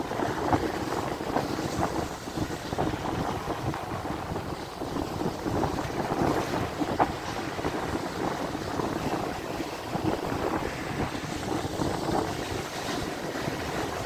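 Rough surf breaking and washing up a sandy beach, a steady rush of waves, with wind buffeting the microphone.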